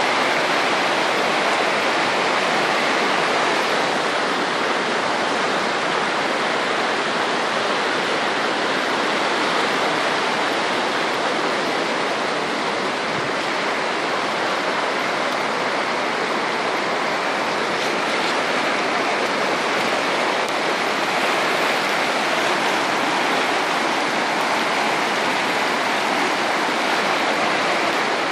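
A river in flood: fast, muddy floodwater rushing past with a steady, loud sound.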